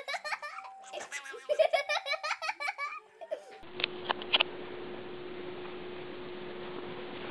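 A person laughing hard in repeated bursts for about three and a half seconds. Then comes an abrupt change to a steady hum with hiss, broken by a few sharp clicks.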